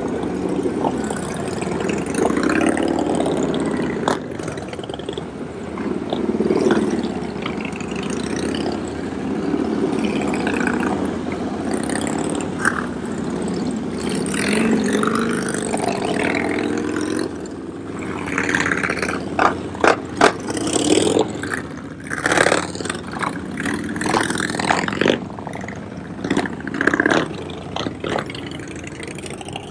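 Motor vehicle engines running and being revved, the pitch rising and falling. A string of sharp cracks comes in the second half.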